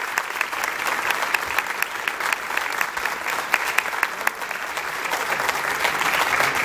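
Audience applauding: many hands clapping in a steady, dense patter that swells a little near the end.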